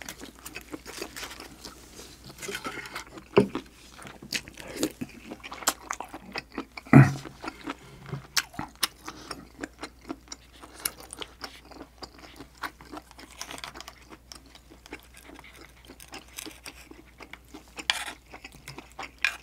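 Close-miked chewing and mouth sounds of someone eating spicy stir-fried octopus with rice, with scattered small clicks and a few louder knocks from the spoon and dishes.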